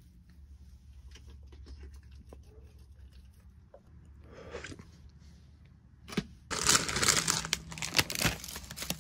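Small handling clicks over a low hum while a sandwich is put together. Then, about six and a half seconds in, loud dense crinkling and crunching starts, as potato chips are crushed and added to the sandwich.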